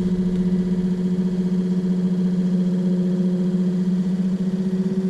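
Excursion/Bison 24 V, 86 lb-thrust electric trolling motor running on its new brushes, fed only 12 V: a steady electric motor hum with one strong low tone.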